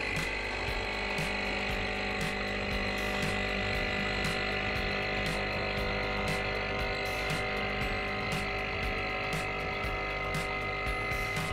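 Capsule coffee machine's pump running steadily while it brews coffee into a mug, a buzzing hum with faint clicks about twice a second.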